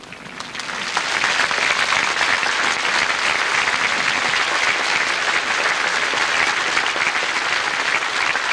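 A large crowd applauding, building up over the first second and then holding steady.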